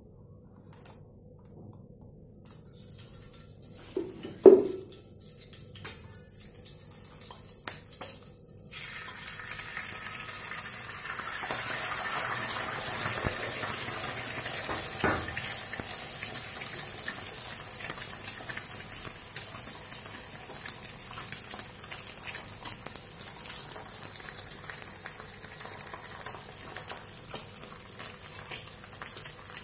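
Egg frying in a hot flat pan: a couple of sharp knocks about four seconds in, a few light clicks, then from about nine seconds a steady sizzle as the egg cooks, with one more knock midway.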